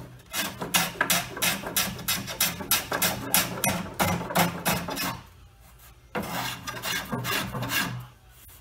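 Small hand plane cutting along the edge of freshly glued cherry veneer, trimming the overhang flush: a run of quick, short scraping strokes about three a second, a pause of about a second, then a second run.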